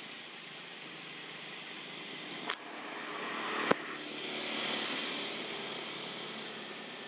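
Steady outdoor background noise, swelling a little about halfway through, with two sharp clicks about a second apart.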